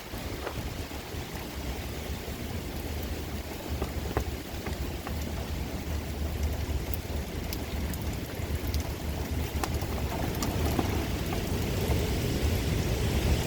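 Typhoon rain driving down hard in strong, gusting wind, with the wind rumbling on the microphone and close raindrops ticking sharply; it grows louder near the end.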